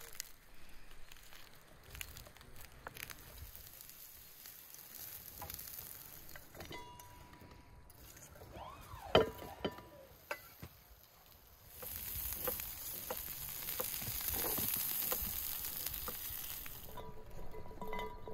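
Food-preparation handling sounds: a pomegranate being pulled apart by hand with small clicks, and a sharp clatter about nine seconds in as sliced onions are tipped from a wooden board into an enamel bowl. Then comes a steady rustling patter for several seconds as pomegranate seeds pour into the bowl.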